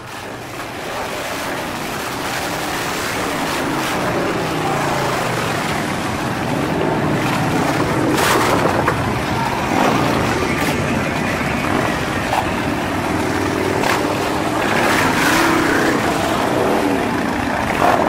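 A procession of cruiser and touring motorcycles riding slowly past one after another, several engines running at once and revving up and down as each bike passes. It fades in at the start and is loudest about halfway through and again near the end as bikes pass close.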